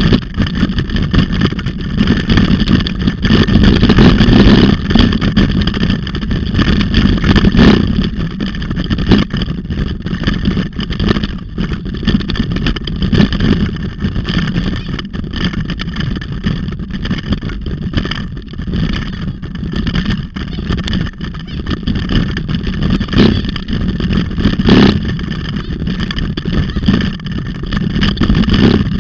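Bicycle rolling fast on a gravel road: wind buffets the handlebar-mounted camera's microphone over the rumble of tyres on gravel. A few sharp knocks come as the bike goes over bumps.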